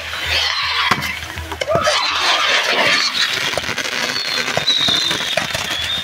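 Pyrotechnic bull (torito) fireworks burning: dense crackling and popping with sharp bangs throughout, and a high whistle from about four seconds in.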